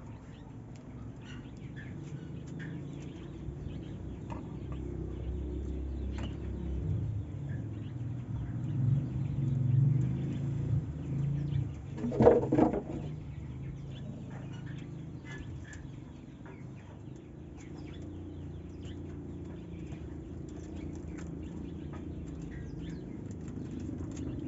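Dog chewing and tearing raw meat from a metal pot, with small wet clicks and gulps, and birds chirping in the background. A brief, louder pitched sound comes about halfway through.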